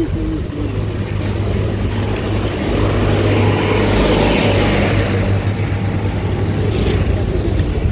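Street traffic noise from cars moving slowly around a bicycle, with a low rumble and a swell of hiss midway.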